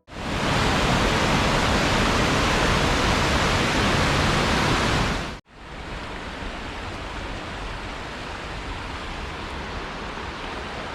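Waterfall rushing steadily. About halfway through it cuts off abruptly, and a second, quieter stretch of rushing water follows.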